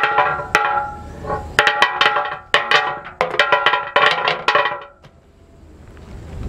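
Small hard compressed coin-towel tablets dropped in several lots onto a hard concrete top, clattering and bouncing in quick sharp clicks with a short ringing tone. The clatter stops about five seconds in as they settle.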